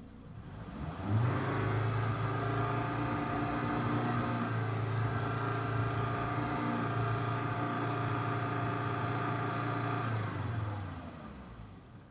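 Volvo S80 T5's turbocharged inline five-cylinder engine revved up from idle about a second in, held at a steady raised speed for about nine seconds, then let drop back toward idle near the end. The car has an intermittent misfire that sets an ignition coil B code.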